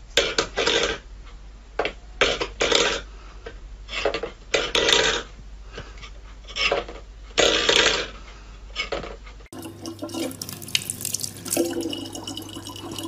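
A cat pushing a stainless steel bowl across a wooden floor with its paw: an uneven run of scrapes and metal clatters. About nine and a half seconds in, this gives way to a thin stream of water running steadily from a tap into a plastic water bottle.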